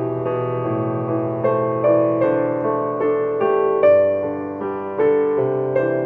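Solo piano playing a slow, gentle melody over sustained chords, notes struck one after another and ringing as they fade.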